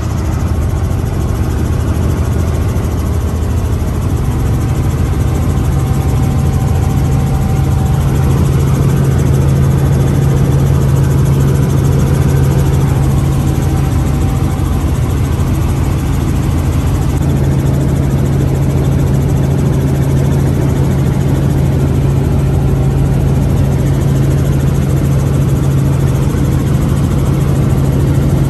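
Light tour helicopter's engine and rotor drone, heard inside the cabin in flight: a steady low hum that grows a little stronger about four seconds in.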